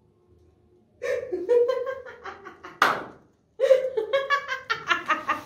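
A woman laughing in long runs of rapid, repeated ha-ha bursts, acting out a man's laughter. A sharp, loud breath is drawn between the two runs, about three seconds in.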